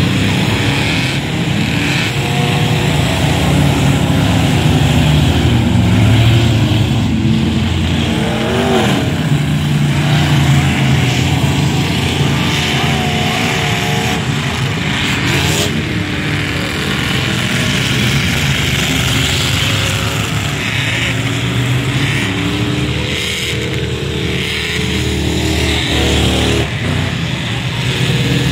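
Engines of a field of enduro-class trucks racing, running hard in a continuous drone, with pitch rising and falling as trucks accelerate, lift and pass.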